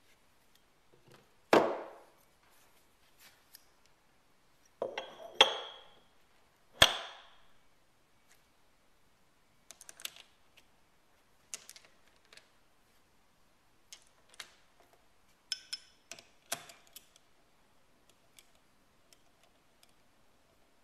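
Heavy steel collet-chuck parts being set down and fitted together: four loud metal clunks, some with a brief ring, then a run of lighter clicks and clinks as socket cap screws and a T-handle hex key are handled at the chuck.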